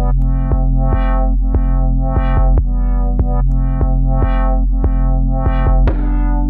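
Background electronic music: synthesizer and keyboard chords over a steady beat.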